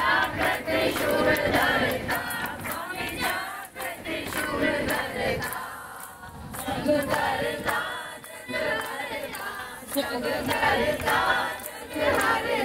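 A crowd of many voices calling out together in loud swells, with short lulls between them.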